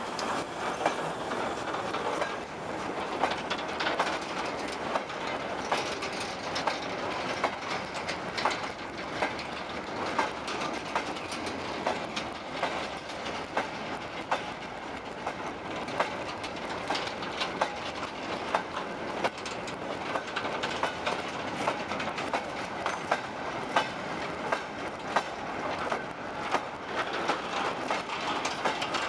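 Freight train of steel mineral wagons rolling slowly past close by: steady rumble and rattle of the wagons, with a continuous run of sharp wheel clicks over the rail joints (clickety-clack).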